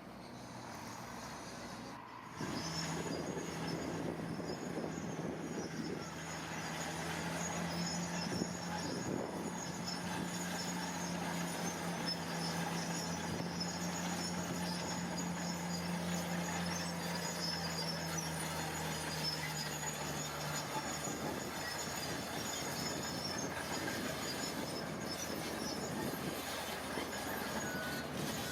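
Heavy tracked earthmoving machine working, its diesel engine running with a steady hum and high metallic squeaking typical of crawler tracks. The hum fades about two-thirds of the way through, while the squeaking and rattling carry on.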